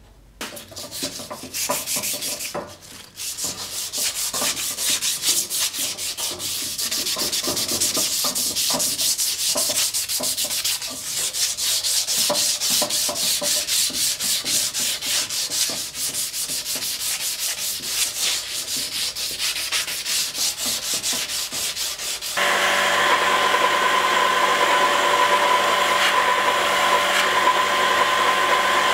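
A forged spring-steel sword blade being sanded by hand with abrasive paper, in quick back-and-forth rubbing strokes. About 22 seconds in this switches abruptly to a belt grinder running with a steady whine as the blade is ground on the belt.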